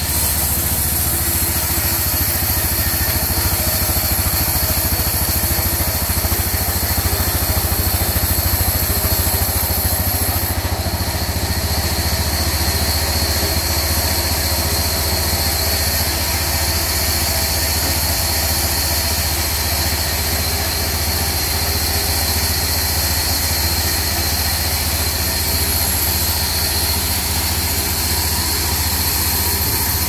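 Diesel engine driving a sawmill's vertical band saw, running steadily without change in pitch or level, while the band-saw blade cuts through a log.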